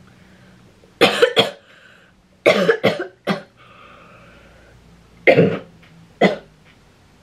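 A woman coughing in hard fits after choking on a sip of cappuccino: a quick run of coughs about a second in, another run at around two and a half to three and a half seconds, and two more coughs near the end.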